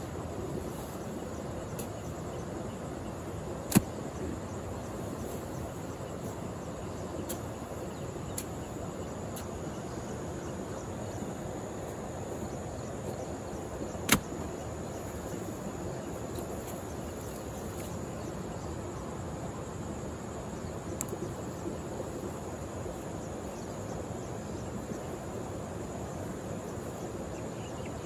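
A long-handled hoe working soft, damp soil, over a steady outdoor background with a faint high insect drone. Two sharp knocks, about four and fourteen seconds in, are the loudest sounds.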